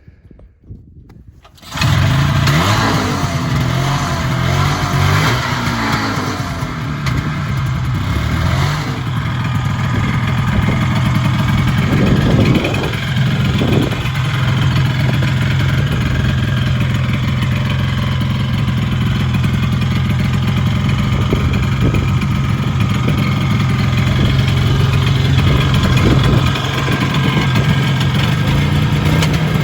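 1973 Ski-Doo TNT 300 SM two-stroke snowmobile engine catching about two seconds in. It runs unevenly with rising and falling revs for several seconds, then settles into a steady run with a couple of brief rises in revs.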